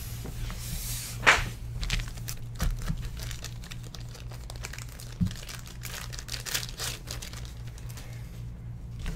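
Packaging crinkling and rustling as card product is handled, with a louder crackle about a second in. A steady low hum runs underneath.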